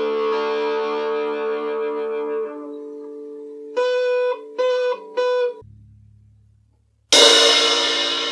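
Musical instruments played one after another, guitar among them: a held chord, then four short evenly held notes, a brief low note, and a loud bright chord struck near the end that rings out and slowly fades.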